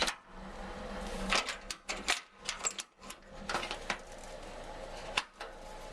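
Waste oil heater burner running with its fan on, a steady rushing, with a series of sharp metallic clicks and knocks scattered through it as the heater's door is shut.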